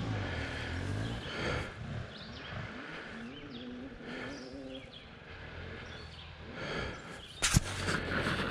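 Dirt bike engine running at low revs on a rough trail, rising and falling with the throttle. A single sharp knock near the end.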